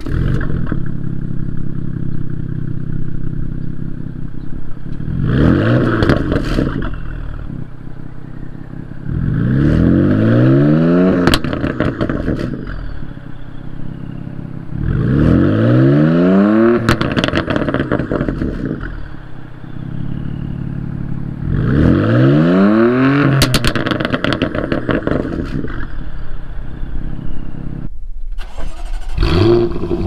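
BMW F80 M3's twin-turbo straight-six, fitted with a Remus race exhaust and mid pipe, idling and then revved four times. Each rev sweeps up and back down, with sharp pops and crackles as it falls. Near the end, after a brief break, a different car's engine (the Jaguar F-Type R's supercharged V8) blips once.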